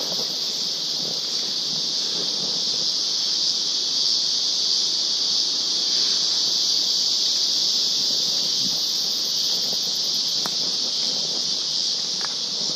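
Forest insect chorus: a loud, steady, high-pitched drone with no breaks or pulses.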